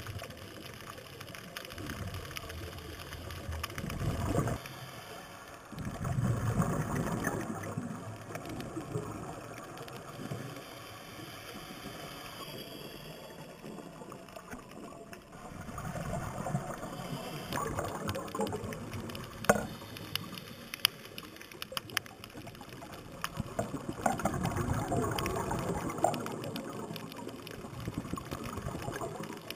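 Underwater sound of a scuba diver's regulator: exhaled bubbles gurgle and rush in surges every several seconds over a steady underwater hiss, with scattered sharp clicks.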